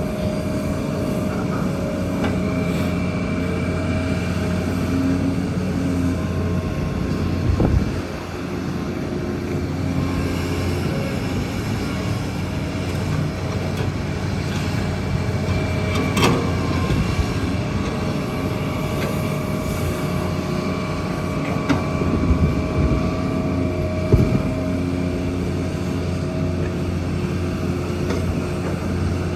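Kobelco excavator's diesel engine running steadily under work, with a few sharp knocks spread through.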